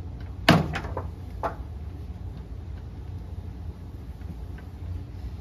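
A sharp knock about half a second in, followed by a couple of softer taps, then a steady low hum.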